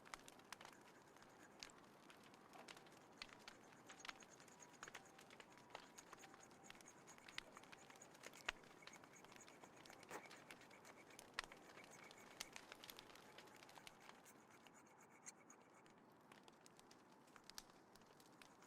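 Small wood fire crackling: irregular sharp pops and ticks over a faint background, with one louder pop about halfway through.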